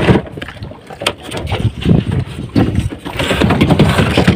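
Wind buffeting the microphone over sea noise on a small outrigger fishing boat, with scattered knocks and rustles from handling, growing louder and hissier near the end.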